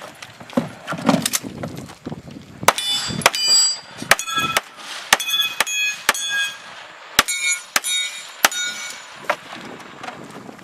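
A string of about a dozen gunshots at an irregular pace. Several are followed by the ringing of steel targets being hit.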